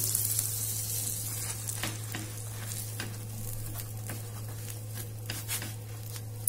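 Melted butter sizzling in a hot pan as pav buns are pressed into it and toasted, with scattered crackles. The sizzle is strongest in the first second or two, then thins, over a steady low hum.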